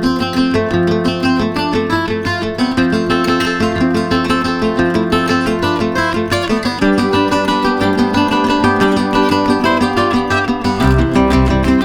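Background music led by strummed acoustic guitar, with a change of chord about seven seconds in and a deeper bass line coming in near the end.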